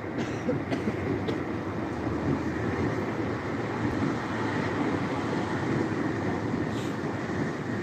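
Train running on rails, a steady, even running noise with no clear rhythm.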